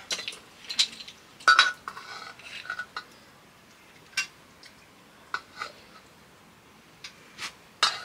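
Metal dishes and utensils clinking and scraping in irregular short knocks, several with a brief ring, the loudest about a second and a half in.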